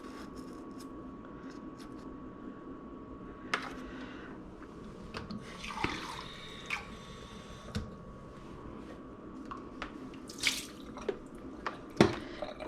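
Vinegar rinse water and loosened scale dripping and trickling into a kitchen sink, with scattered light knocks of plastic humidifier parts. A louder splash comes about six seconds in and again about ten seconds in, over a faint steady hum.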